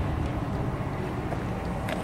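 EMD SW1500 switcher and GP38-2 locomotives running with a steady low diesel rumble as they move a train slowly along the track.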